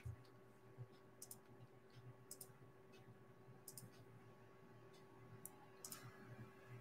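Near silence: room tone with a faint steady hum and a few faint, sharp clicks, several coming in quick pairs.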